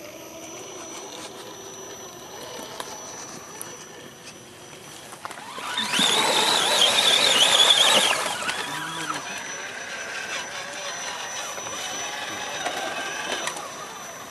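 Electric motor and drivetrain of an RC scale crawler truck whining, the pitch wavering with the throttle, as the truck drives through muddy water with splashing. It is loudest from about six to eight seconds in, then settles to a lower level.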